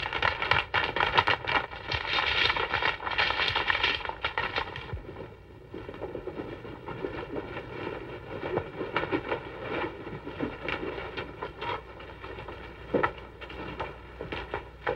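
Hoofbeats of a group of horses riding, a busy clatter that is loudest for the first four seconds and then thins to scattered, sharper knocks.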